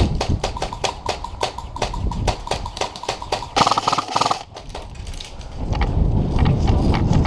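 Airsoft gunfire across the field: a run of sharp snaps and ticks a few per second, with a short dense rattle about three and a half seconds in. A low rumble builds near the end.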